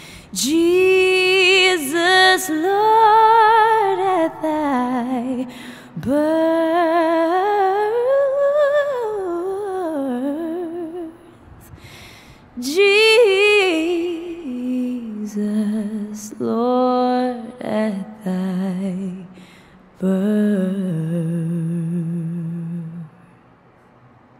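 A solo female voice humming a slow, wordless melody with vibrato, in five long phrases that drop to a lower pitch in the later ones, stopping shortly before the end.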